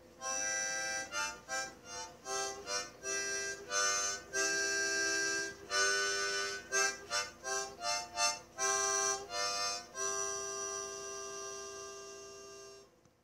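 Harmonica music: a quick run of short notes and chords, ending on one long held chord that fades out near the end.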